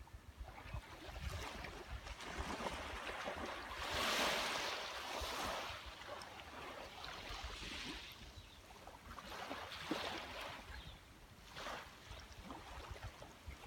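Small waves washing onto a beach and drawing back, in soft swells, the biggest about four seconds in and smaller ones near ten and twelve seconds, over a low rumble.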